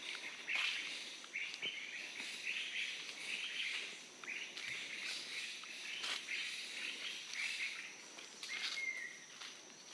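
Footsteps scuffing through leaf litter on a dirt trail at a walking pace, about two steps a second. A steady high insect buzz runs underneath, and a single short bird chirp sounds near the end.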